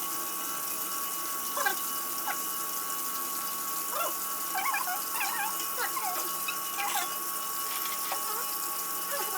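Chicken pieces deep-frying in hot oil, a steady sizzling hiss, with faint short chirps now and then.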